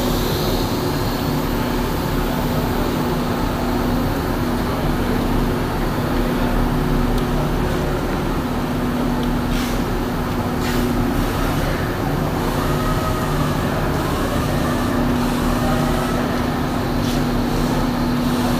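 A steady mechanical drone with a constant low hum, with a few sharp clicks about ten seconds in and faint voices in the background.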